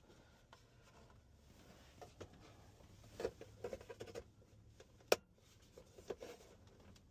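Scattered light clicks and taps of plastic center-console trim pieces being handled and pried, with one sharp click about five seconds in.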